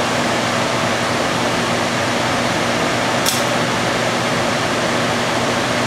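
Lampworking bench torch burning with a steady hiss, over a low steady hum. A single light tick a little over three seconds in.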